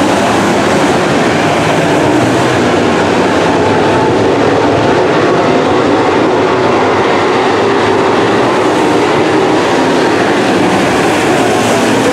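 Several dirt super late model race cars' V8 engines running together on the track, a loud, steady drone whose pitch wavers slowly as the cars work around the oval.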